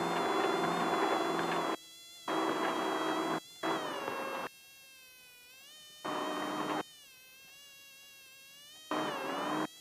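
Off-road race car's engine whining steadily, its pitch wavering a little. About five loud bursts of rushing noise cut in and out abruptly over it.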